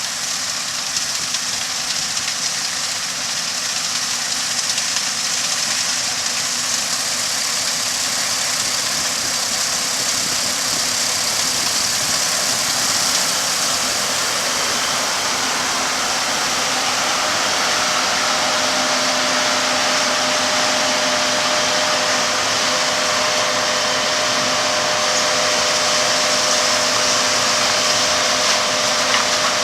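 Corn-harvesting machinery running steadily: an engine drone under a broad hiss that grows gradually louder, with a steady hum that strengthens past the halfway point.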